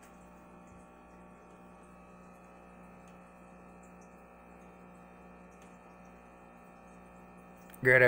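Steady low electrical hum from aquarium equipment. A man's voice starts right at the end.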